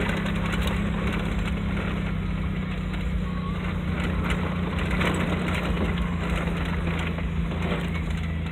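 Vehicle engine running steadily while its tyres roll over a dirt and gravel road, with scattered small knocks and clicks, heard from inside the cabin.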